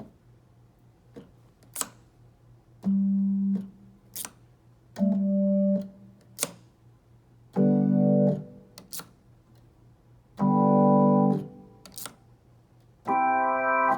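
Hammond XK2 drawbar organ playing about five short held chords, each lasting roughly a second, with sharp clicks in the gaps. It is heard through a Roland KC keyboard amp with the Leslie effect and the overdrive on; the owner reports a mid-high distortion in this instrument.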